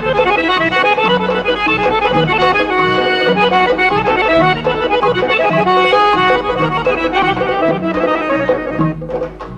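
Instrumental passage of Azerbaijani traditional dance music: a fast melody of quick running notes over drums keeping a steady beat about twice a second.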